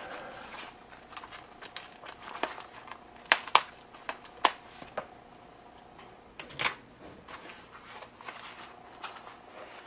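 Scissors cutting through packing tape and a foam wrap, a few sharp snips in the middle, then the thin foam sheet crinkling and rustling as it is unfolded by hand.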